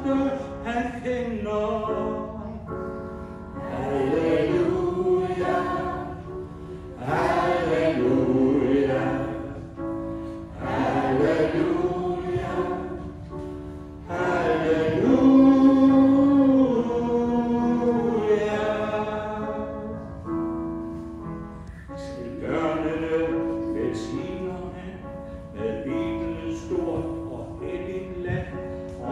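Small mixed choir of men and women singing in Danish, in phrases a few seconds long with short pauses between; one man sings into a hand-held microphone.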